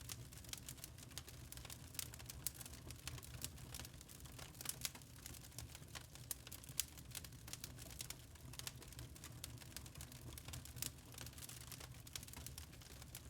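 Log fire in a fireplace crackling: irregular sharp pops and snaps of burning wood, a few louder than the rest, over a low steady rumble of the flames.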